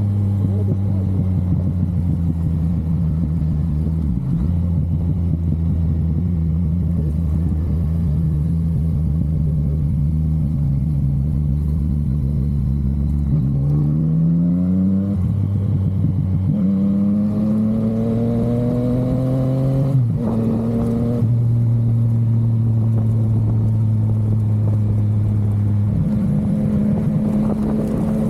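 Yamaha MT-09's three-cylinder engine and exhaust under way: a steady cruising note at first, then about halfway through two rising pulls through the gears with a sudden drop at the shift between them, settling back to a steady note.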